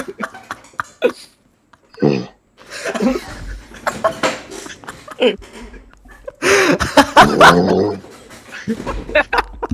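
Snoring from someone asleep, several snores a few seconds apart, with the longest about two-thirds of the way through, mixed with stifled, breathy laughter.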